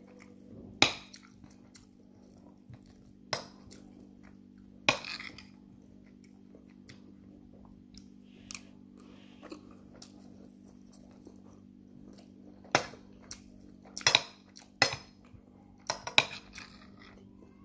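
Metal fork clinking and scraping against a plate in a string of sharp knocks, a few near the start and a quick cluster in the last few seconds, with quieter eating sounds between, over a steady low hum.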